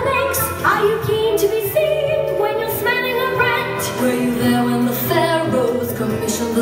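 Recorded music playing for a dance: a woman's singing voice over a bass line with a regular percussive beat, heard with the reverberation of a theatre hall.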